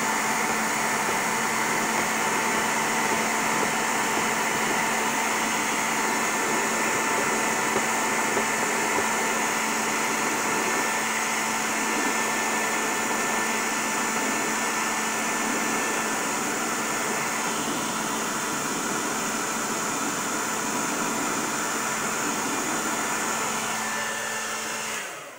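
Handheld hair dryer running steadily, a loud rush of air over a steady motor hum and whine, switched off just before the end.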